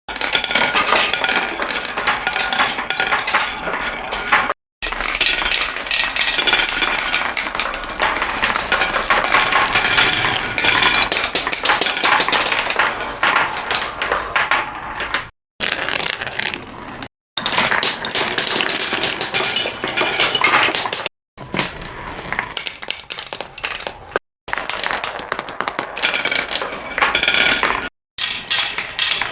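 Many marbles rolling and clattering along a marble run, a dense stream of small clicks and clinks. The stream is broken by several brief dropouts to silence.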